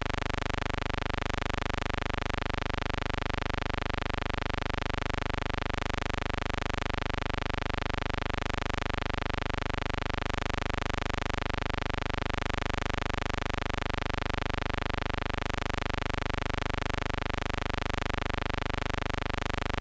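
A steady, unchanging electrical buzz, like mains hum, with no rise or fall while the train approaches and passes.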